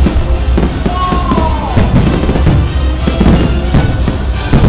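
Fireworks going off in a dense, continuous volley of booms and bangs, with music playing underneath.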